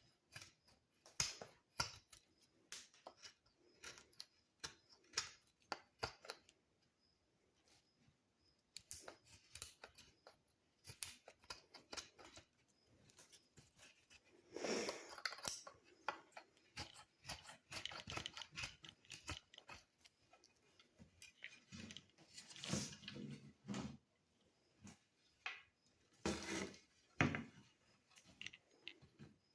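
Irregular light clicks, taps and brief scrapes of a knife and its handle being handled close to the microphone, with a few longer rubbing or rustling stretches.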